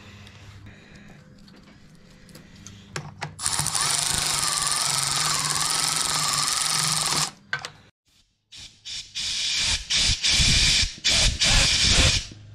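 Milwaukee cordless ratchet running for about four seconds with a wavering motor whine, spinning the fuel-line fitting on a diesel injector pump loose. After a short pause comes a louder run of irregular metal clanks and rattles from work on the fitting.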